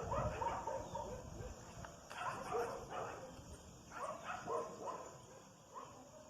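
A puppy yipping and whining in short, high calls, in several bunches.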